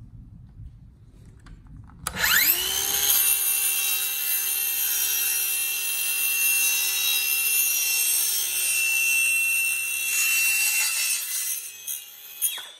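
A Craftsman 20V cordless 6.5-inch circular saw starts about two seconds in with a sharply rising whine, then runs steadily while cutting through a piece of wood clamped in a vise, slicing it easily, like cutting butter. The motor stops near the end.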